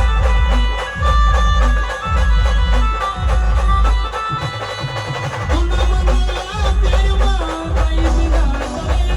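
Band playing an instrumental break in a folk song: a heavy bass beat about once a second under a sustained lead melody, with the beat dropping out briefly near the middle.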